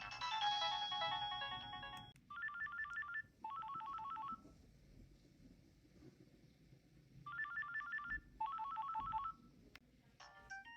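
Nokia 7610 mobile phone playing its ringtones. A many-note melody ends about two seconds in. Then a trilling electronic ring sounds as two pairs of short bursts about five seconds apart, and a new melody starts near the end.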